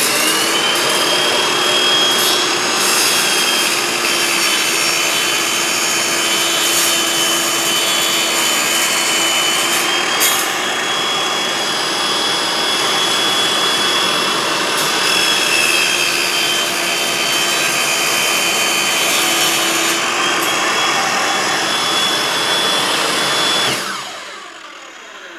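Sirocco 8.5-inch jobsite table saw running at full speed and ripping a board, a steady high whine over motor noise that sags slightly in pitch while the blade is in the cut. Near the end the saw is switched off and winds down.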